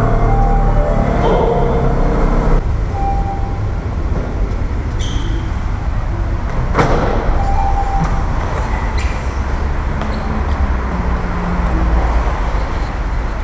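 A Mini Cooper idling and creeping forward into an automated parking-lift bay: a steady low rumble, with a sharp click about seven seconds in.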